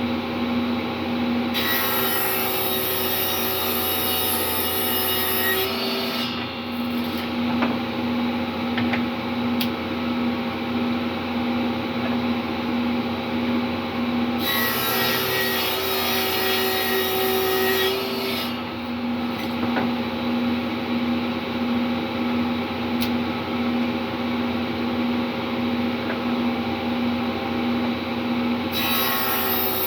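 Table saw running steadily, ripping the tongue edges off cedar planks. The blade cuts through the wood with a loud hiss three times: about two seconds in and about halfway, each for roughly four seconds, and again starting just before the end.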